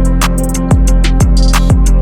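Background music with no vocals: a beat whose deep bass drum slides down in pitch about twice a second under quick hi-hats.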